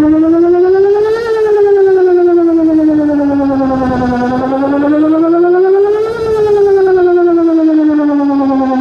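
Tornado warning siren sounding a test, a loud wailing tone whose pitch rises and falls smoothly, peaking twice, about five seconds apart.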